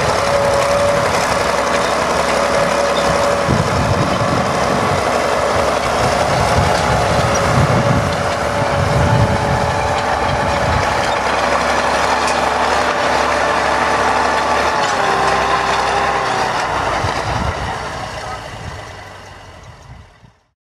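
International Harvester BTD20 crawler tractor's diesel engine running steadily as it tows a disc harrow. The sound fades out over the last few seconds.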